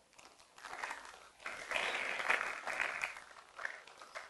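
Plastic Lego polybag crinkling as it is folded and crumpled in the hands. It is loudest for about a second and a half in the middle, then fades.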